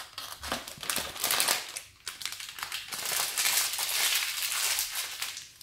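Hands squishing and handling slime spilling out of a cut-open squishy stress ball, with irregular sticky crackling and crinkling noises.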